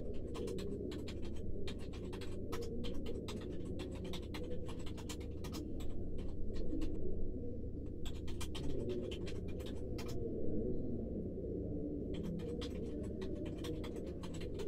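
Muffled hospital-room ambience, a steady low dull hum as if heard through a door. Over it comes a run of light, irregular clicks and scratches in spurts with short pauses.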